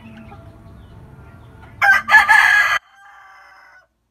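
Rooster crowing once, loud and short, about two seconds in; the crow breaks off abruptly.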